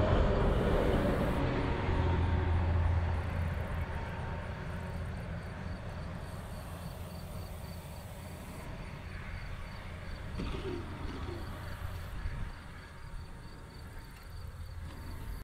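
Radio-controlled model airplane's engine throttled back on its landing approach, fading over the first few seconds as the plane comes down to land. Wind rumbles on the microphone throughout.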